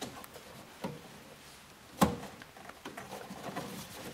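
Faint rustling and small plastic clicks of hands working a headlight bulb's wiring connector, with one sharp click about two seconds in as the white connector is pressed and pulled off the halogen bulb.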